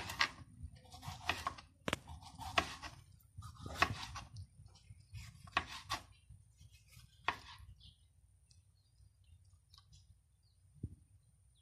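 Kitchen knife slicing through a tomato and knocking on a plastic cutting board, a cut about every second, then a pause of a few seconds near the end.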